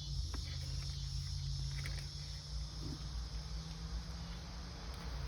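Steady background sound: a low hum under an even, high insect-like chirring, with a few faint light clicks about half a second and two seconds in.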